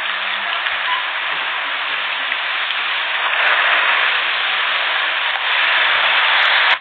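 Steady hiss of rain falling on wet pavement, swelling a little partway through and cutting off abruptly at the end.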